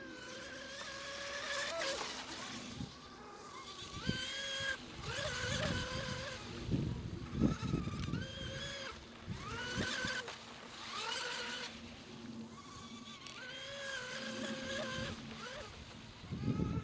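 Whine of an RC racing boat's Tenshock EVO 1535 3350kv brushless electric motor as the boat runs on the water. The pitch rises and falls again and again with throttle and the boat's passes, and there are low rumbling bursts in between.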